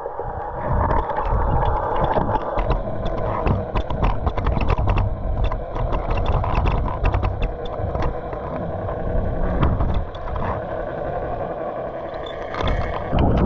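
Underwater sound picked up by a submerged GoPro: a steady, muffled hum with many sharp, irregular clicks scattered through it.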